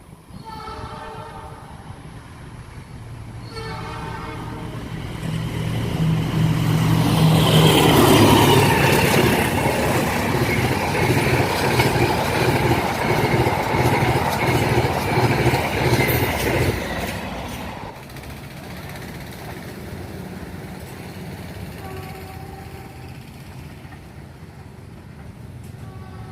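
CC 206 diesel-electric locomotive sounding its horn in two short blasts, then passing close by with its engine rumbling, the horn held as it goes by and falling slightly in pitch, and the wheels clacking steadily over the rail joints. The loud passing stops abruptly about seventeen seconds in.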